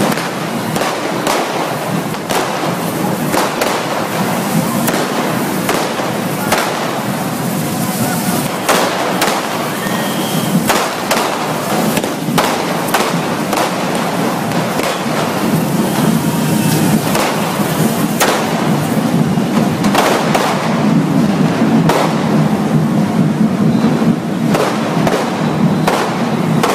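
Cake fountain sparklers burning with a loud, steady hiss and dense crackle, sharp pops sounding many times a second.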